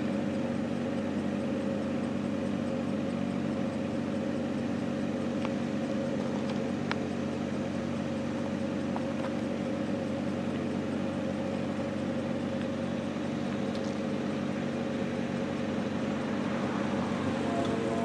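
A diesel engine running steadily at an even speed, giving a low droning hum, with a few faint clicks over it.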